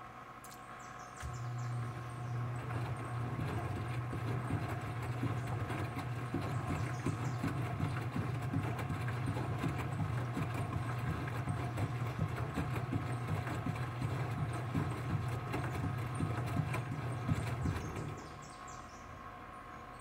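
Enxuta Master 3 front-loading washing machine in its wash cycle: the drum motor starts about a second in with a low hum and a steady whine, the wet linens and sudsy water slosh and thump as the drum turns, and the motor stops near the end.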